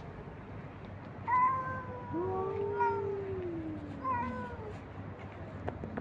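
Stray cats meowing: a higher call, then a lower, drawn-out meow that overlaps it and falls in pitch, then a short higher meow, from at least two cats.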